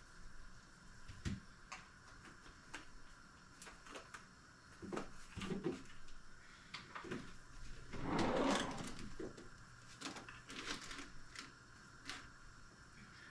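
Kitchen work sounds: scattered light clicks and knocks of utensils and dishes, with a louder rustling scrape lasting about a second around eight seconds in. Near the end a low kitchen drawer is slid open.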